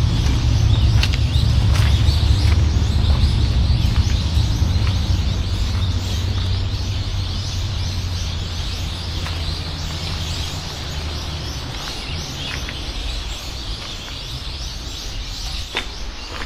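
Many birds chirping continuously outdoors, over a low rumble that is loudest at first and slowly fades away.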